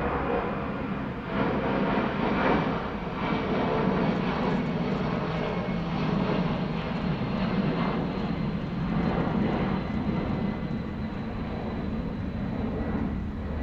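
Jet airliner's engines climbing out after takeoff: a steady, loud jet rumble with a faint high whine that slowly drops in pitch, easing slightly near the end.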